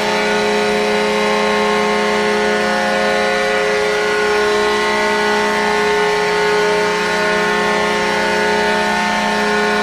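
Hockey goal horn sounding one long, steady, loud blast.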